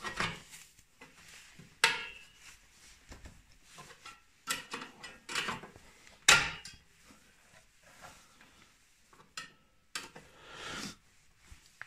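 Steel exhaust springs on a snowmobile's exhaust joint being worked off by gloved hands: irregular metal clinks, jangles and short scrapes, the sharpest about two seconds in and again just past six seconds.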